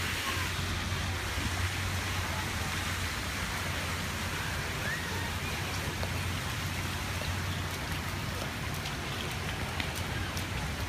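Steady hiss of water running across a shallow plaza splash fountain, over a constant low hum.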